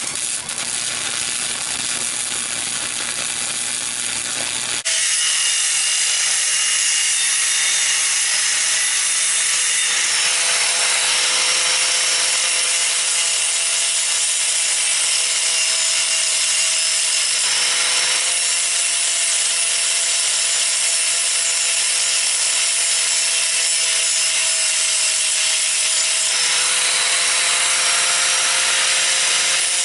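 A power tool running continuously under load, its whine wavering slightly in pitch. It becomes louder about five seconds in.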